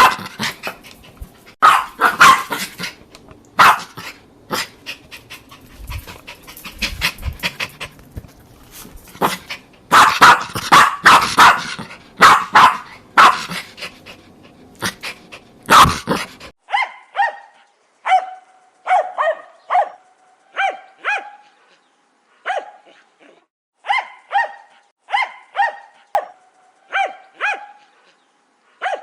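Jack Russell terrier barking: sharp single barks and quick runs of barks over a hissy background. About halfway through, the sound changes abruptly to cleaner, pitched barks coming in pairs and threes, about two a second.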